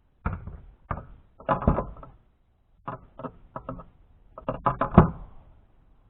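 A series of knocks and clunks in short clusters, the loudest about five seconds in: gear bumping against the kayak as it is handled.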